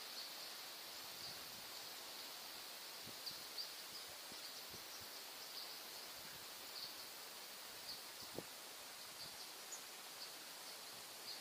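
Faint rural ambience: a steady high-pitched insect buzz with short scattered chirps, and a few soft clicks. The approaching train is not yet audible.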